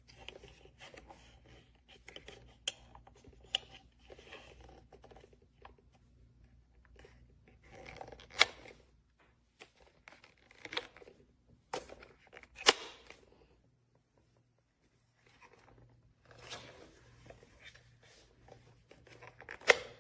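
Handling noises: scattered tearing, scraping and crunching with several sharp clicks, the loudest about eight, twelve and twenty seconds in, and a short quiet spell just past the middle.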